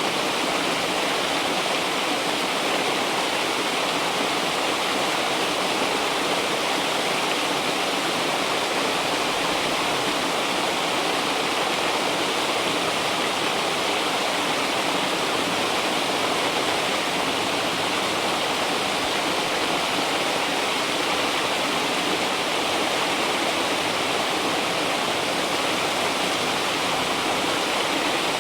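River water rushing and flowing, a steady even noise.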